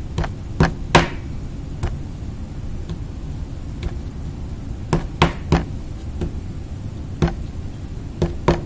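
Hands rolling a coil of clay back and forth on a work table, with scattered sharp knocks as the hands press and strike the tabletop, heard over a steady low room rumble.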